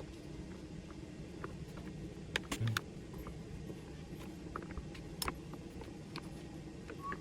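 Small metal clicks and taps of AR-15 parts being handled and wiped down during cleaning, with a few sharper clicks about two and a half and five seconds in, over a steady low background rumble.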